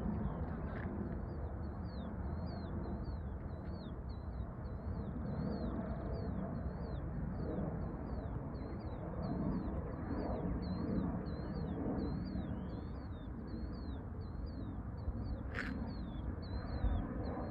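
A bird calling in a long, even series of short high chirps, about two a second, over a steady low rumbling background. A sharp click comes near the end.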